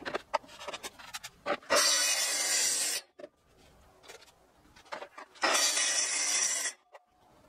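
Plunge-cut circular saw on a guide rail, cutting timber boards in two short runs of a little over a second each, about two seconds in and again past five seconds. Light clicks and knocks of handling the saw and wood come between the runs.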